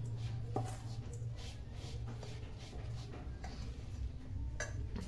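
Spoon stirring coarse spice masala moistened with mustard oil in a stainless steel bowl: faint repeated scraping and rustling strokes over a steady low hum.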